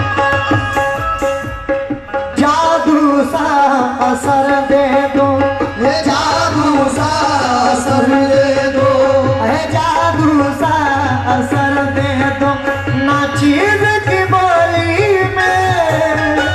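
Live qawwali: a male singer's voice over tabla and harmonium accompaniment, the singing coming in about two and a half seconds in.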